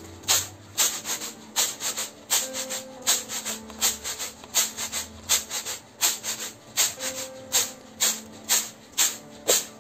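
Split urad dal rattling in a reed winnowing basket (chhaj) being tossed by hand to winnow off husk and broken bits, a steady rhythm of about two to three swishes a second. Soft background music with long held notes plays underneath.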